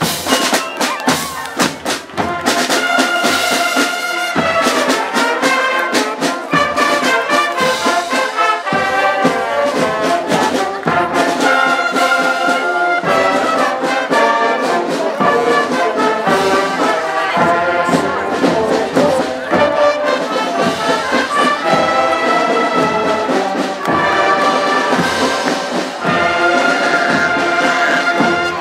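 Marching band playing: trumpets and trombones carry a melody over a steady beat of snare drums.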